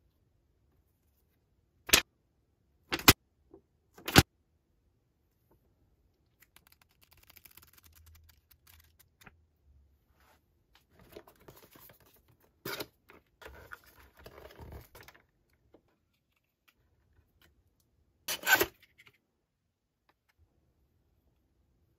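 Hands handling an electronics product's packaging on a table. There are three sharp knocks in the first few seconds, then soft rustling of paper, card and plastic wrap, and a louder knock and rustle of cardboard near the end.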